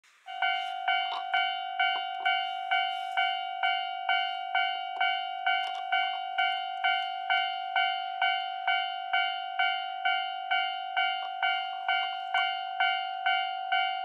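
Railway level-crossing warning bell, switching on abruptly and then ringing a steady, even ding at a little over two strikes a second. It signals that a train is approaching the crossing.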